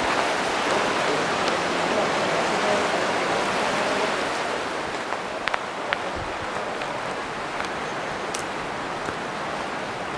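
Steady rush of river water flowing over rocks, easing gradually, with a few short clicks about halfway through.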